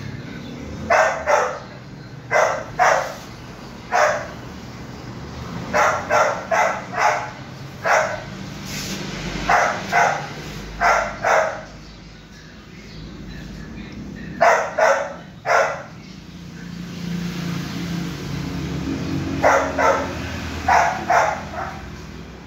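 Golden retriever puppy barking in short, sharp barks in groups of one to four, about two dozen in all, with a pause of a few seconds past the middle.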